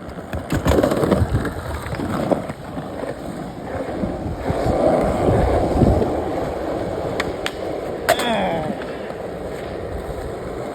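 Skateboard rolling, its wheels giving a rough steady rumble, with a few sharp clacks of the board in the second half.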